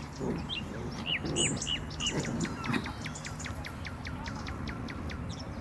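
A bird calling a run of short whistled notes, each sliding down in pitch, slow at first and then speeding up to about four a second before stopping near the end, over soft low rustling.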